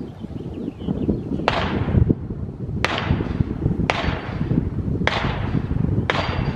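Five sharp gunshots, about one a second, each with a short trailing echo, over a steady low rumble of wind on the microphone.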